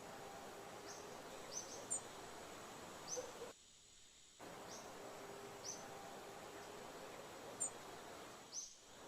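Steady outdoor background hiss with short high bird chirps every second or two and a couple of quick high sweeping calls. The background drops out abruptly for about a second near the middle.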